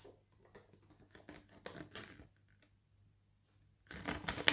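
Folded paper leaflet being opened out by hand: a scatter of light crinkles and rustles over the first two seconds, then a louder rustle of paper about four seconds in.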